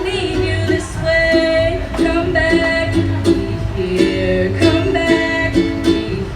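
A female singer performing a slow pop song live, holding sung notes over a strummed plucked-string accompaniment.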